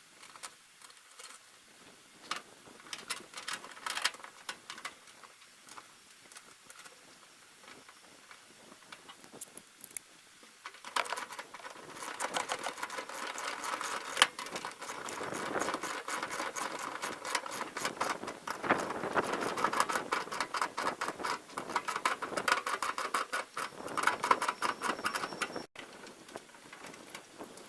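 Mechanical clicking and tapping from work on the baler's parts: scattered sharp ticks at first, then, about eleven seconds in, a long run of rapid clicks.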